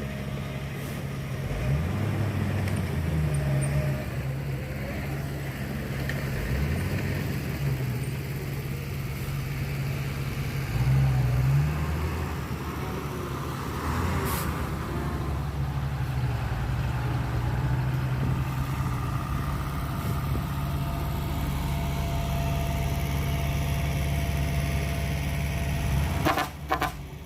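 Heavy diesel engines of earthmoving machinery running, revving up and dropping back several times in the first half and then running steadier. A few sharp knocks come near the end.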